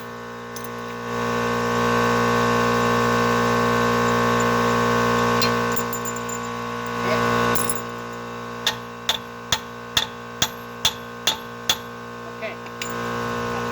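Hand hammer striking metal on a truck's front suspension, a run of about eight sharp blows roughly every half-second in the second half. Before the blows a steady machine whir rises for a few seconds and dies away, over a constant background hum.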